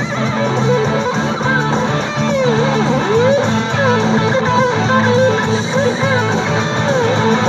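Amplified electric guitar playing a lead line with bent, wavering notes over steady sustained low notes.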